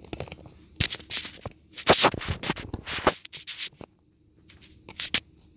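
Footsteps scuffing and crunching on gritty tarmac close to the microphone, an uneven run of scrapes loudest about two seconds in, pausing near the middle, then two more steps near the end.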